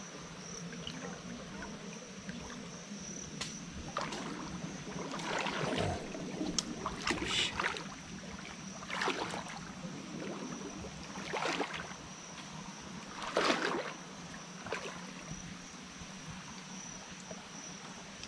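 Rustling and crackling of forest vegetation in about seven short bursts, as a person works among bamboo clumps, over a steady high-pitched insect drone.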